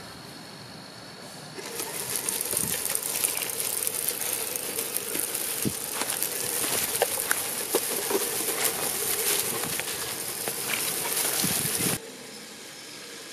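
1/12-scale 3D-printed 4x4 RC car driving over dry leaf litter: the tyres crunch leaves and twigs with many small cracks, over a steady motor whine. It starts about one and a half seconds in and cuts off suddenly near the end.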